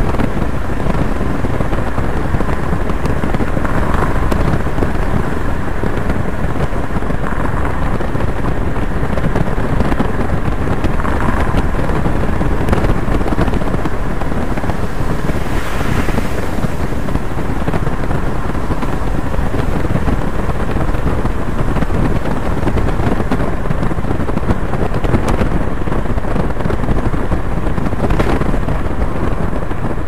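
Wind rushing over the microphone and road noise from a moving vehicle, steady throughout, with a brief louder rush about halfway through.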